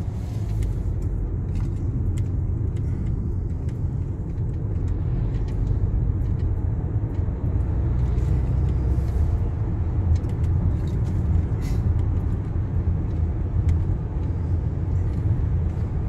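Car in motion heard from inside the cabin: a steady low rumble of engine and tyres on the road.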